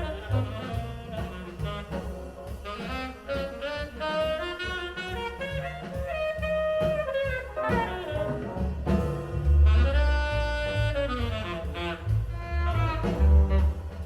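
A jazz recording with saxophone and double bass, played back over Sound Lab G7-5C full-range electrostatic loudspeakers.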